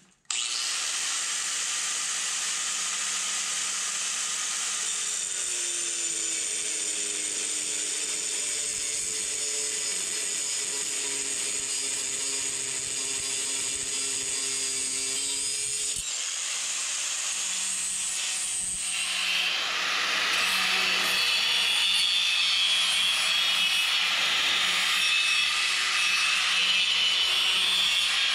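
Angle grinder with a cut-off wheel cutting through the threaded steel pushrods of air brake chambers, a steady high whine under load. It dips briefly about 16 s in, then grows louder and harsher from about 19 s on.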